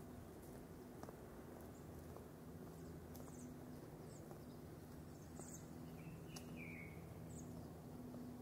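Portland streetcar running, heard from inside the car: a faint, steady low hum, with a few short, faint high chirps.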